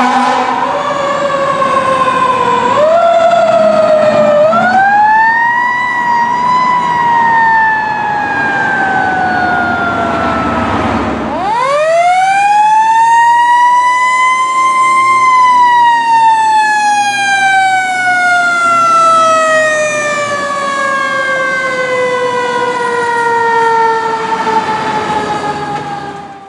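Fire engine's mechanical siren winding up and coasting down. It rises and falls once early on, then winds up quickly about halfway through and dies away slowly over some ten seconds before fading out.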